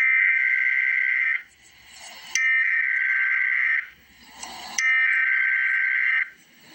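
Emergency Alert System SAME header: three bursts of buzzing digital data tones, each about a second and a half long with about a second's pause between them. They carry the coded severe thunderstorm watch message that opens the alert.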